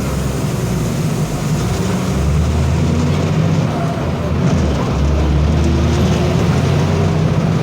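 Diesel engine of a VW 17.230 EOD bus chassis running with a low rumble, getting louder about two seconds in, with the turbocharger whining ('singing') faintly above it.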